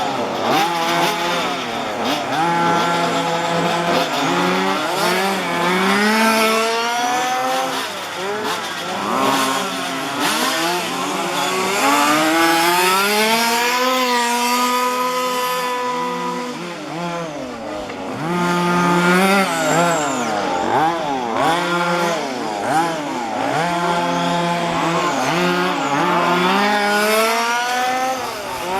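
Several 1:5-scale petrol RC cars' small two-stroke engines racing, revving up and down over and over with their pitches overlapping, rising and falling.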